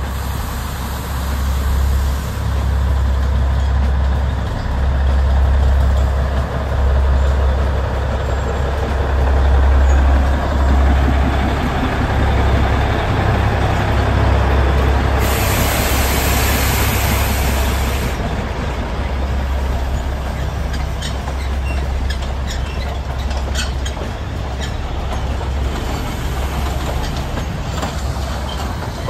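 Narrow-gauge diesel locomotive of the Matheran toy train passing close by, its engine giving a steady deep rumble. About halfway through comes a hiss lasting about three seconds, and in the later part light clicks are heard as the coaches roll past.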